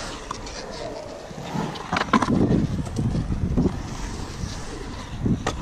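Skateboard wheels rolling on the concrete of a skatepark bowl, a steady rumble with wind buffeting the microphone. A few sharp clacks, the loudest about two seconds in and another near the end.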